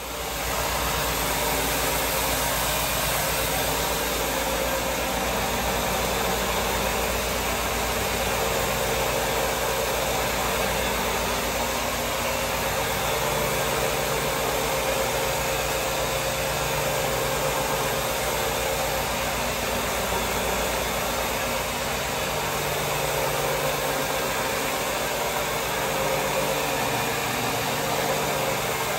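Zipper counter-rotating brush floor machine running steadily, its motor humming and its brushes scrubbing a wet linoleum floor to strip years of built-up wax.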